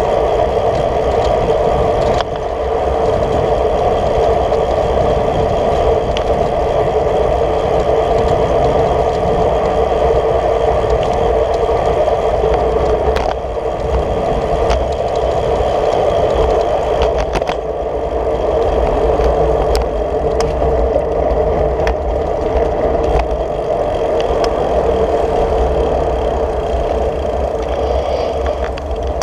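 Steady wind and road rumble on a camera carried on a road bike riding at speed, with a few short clicks and rattles from bumps in the road.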